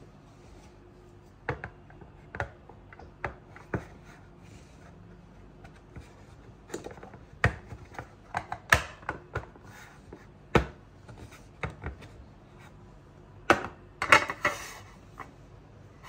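White plastic food containers and their lids clicking and knocking on a countertop as the lids are fitted and the boxes are moved, in scattered taps with a short cluster of clatter near the end.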